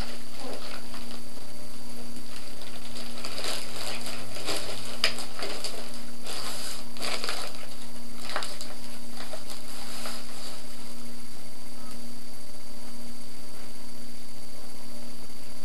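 Crinkling and rustling of foil emergency ration packets being handled and set down on a table, in bursts from about three to ten seconds in, over a steady electrical hum.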